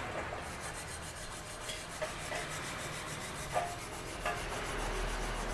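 Light rubbing and scraping on the steel workpiece, with a few small knocks, as a freshly MIG-welded bead is handled and cleaned for inspection.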